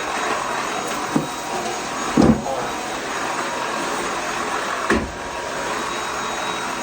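Vacuum cleaner running steadily while sucking up crumbs from a kitchen floor. A few short low knocks break in, the loudest about two seconds in.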